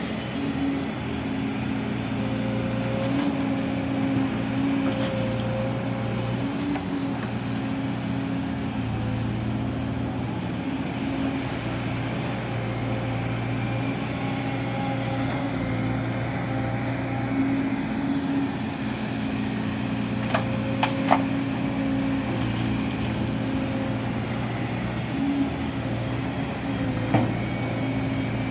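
Engine of heavy road-construction machinery running steadily, with a few short, sharp clanks about two-thirds of the way through and again near the end.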